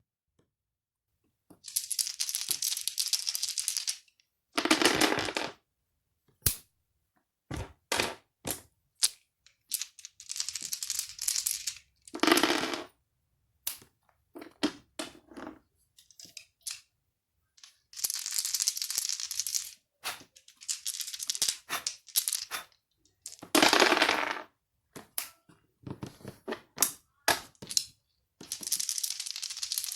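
Cee-lo dice being shaken and rolled again and again: bursts of rattling, some a couple of seconds long, with single sharp clicks between them.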